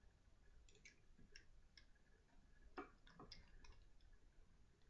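Near silence with a scatter of faint, irregular clicks from a small e-liquid bottle and its cap being handled and fiddled with.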